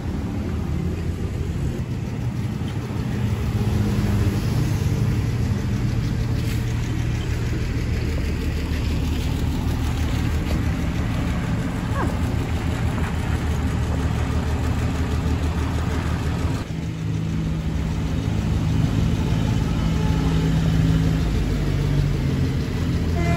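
A motor vehicle's engine running steadily with a low hum, with a brief dip about two-thirds of the way through.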